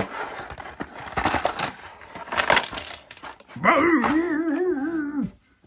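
Cardboard box and plastic packaging tray being handled, with rustling and sharp clicks and scrapes. About three and a half seconds in, a loud wavering pitched whine-like vocal sound lasts under two seconds and cuts off abruptly.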